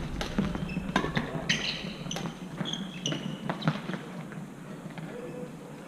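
Irregular knocks and taps, several followed by a short high metallic ring, growing sparser and quieter toward the end.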